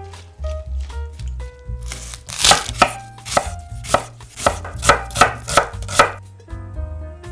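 Chef's knife slicing a white onion on a wooden chopping board: about a dozen quick cuts, roughly three a second, starting about two seconds in and stopping near the end. Soft background piano music plays throughout.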